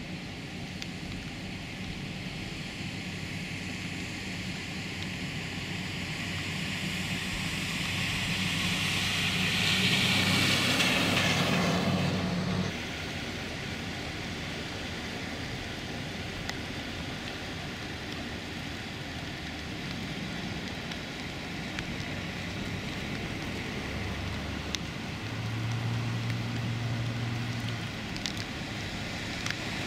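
A vehicle driving through deep floodwater, its engine humming low under the hiss of water spraying off its tyres. The hiss builds to a peak as it passes, about ten seconds in, then breaks off suddenly. After that comes a steady wash of rain and water, with a low engine hum rising again near the end.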